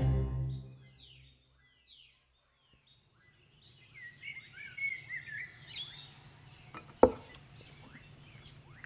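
Outdoor ambience of small birds chirping and a steady high insect drone fading in after a low note dies away in the first second. About seven seconds in there is a single sharp knock.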